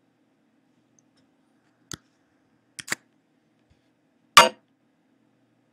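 Computer mouse clicks while operating editing software: a single click, then a quick double click, then a louder click, over a faint steady hum.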